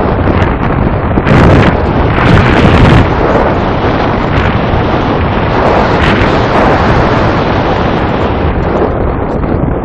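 Loud rush of airflow buffeting the onboard camera's microphone on a Wing Dragon RC glider in a glide, surging in gusts during the first few seconds.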